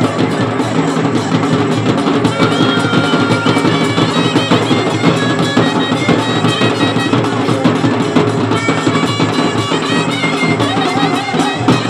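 Loud live folk music, with drums played in a fast, steady rhythm.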